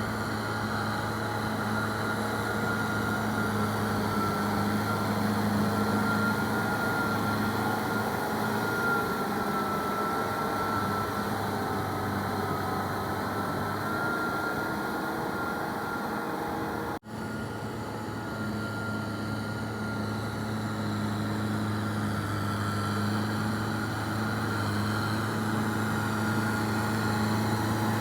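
Kubota M6040SU tractor's diesel engine running steadily under load with a wavering high whine over its low hum. The sound cuts out for an instant about two-thirds through, then carries on the same.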